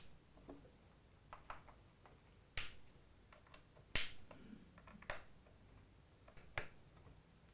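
Scattered sharp clicks of a hex key and bolts being worked against the clear acrylic frame of a 3D printer kit, a few of them a second or so apart, the loudest about four seconds in.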